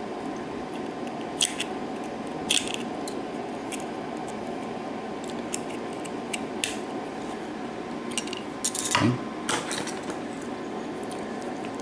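Small metal clicks and scrapes of a tool working at a mortise lock cylinder while trying to pry the retaining clip off its plug, with a louder scraping clatter about nine seconds in. A steady low hum sits underneath.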